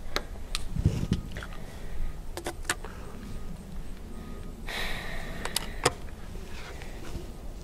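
Scattered light clicks and clacks of a shotgun being handled between shots, with a short rustle about five seconds in.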